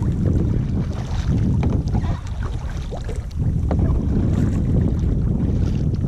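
Wind buffeting the microphone with a steady low rumble, over the splashes and drips of double-bladed kayak paddles dipping into lake water on several strokes.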